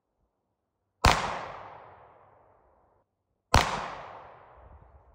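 Two pistol shots about two and a half seconds apart, each sharp crack dying away over about two seconds.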